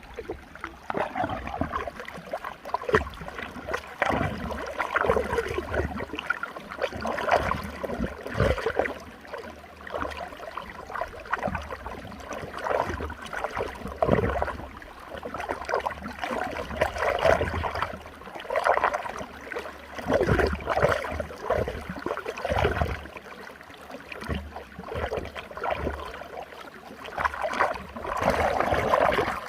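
Running water swirling in a whirlpool, gurgling and churning, its loudness swelling and falling unevenly.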